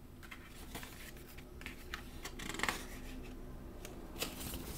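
Paper pages of a small booklet being handled and turned: a run of short rustles and crisp paper flicks, the loudest a little past halfway through.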